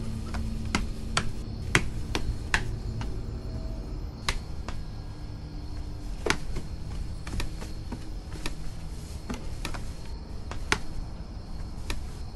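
Footsteps on stone stairs: sharp clicks of shoes at an uneven pace as a person climbs, over a low steady hum.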